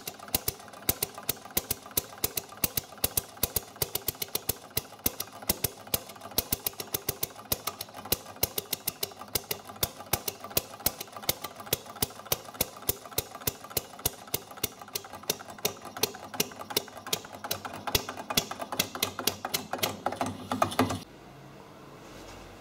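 Home-built compressionless two-stroke single-cylinder engine with valve ignition running: a fast, regular train of sharp pops and clacks. It stops abruptly about 21 seconds in.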